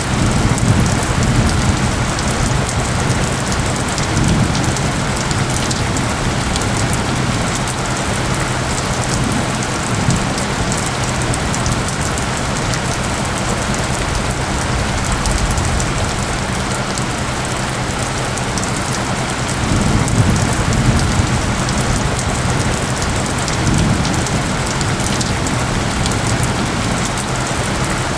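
Steady, dense rain pattering, laid over steady low tones of the isochronic tone track. A few low rumbles swell up, the strongest about twenty seconds in.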